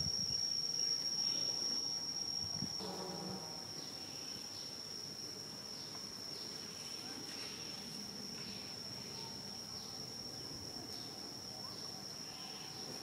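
Insects droning: one steady high-pitched whine that does not change, with faint short chirps over it. About three seconds in there is a brief low voice-like sound.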